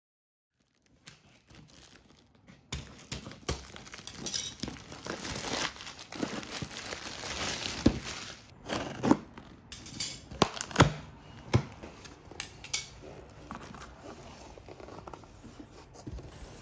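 Packaging being handled and unpacked: crinkling and rustling of paper or plastic wrapping, broken by sharp clicks and knocks, busiest in the middle and settling near the end.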